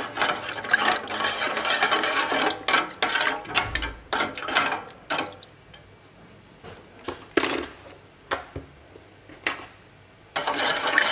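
A spoon scraping around the inside of a hammered aluminium saucepan, stirring agar-agar mixture with sugar and red colouring. It is rapid and continuous for the first two seconds, then slows to single scrapes about a second apart, with another quick run of stirring near the end.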